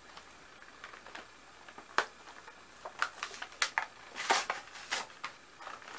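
Diecast car's cardboard-and-plastic blister package being handled and opened: scattered clicks and crinkles, a sharp click about two seconds in, and a busier run of crackling and rustling in the second half.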